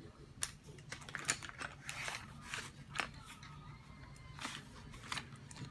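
Coloured pencils and a colouring book being handled: a run of irregular clicks, taps and paper rustles, heaviest in the first three seconds and again near the end.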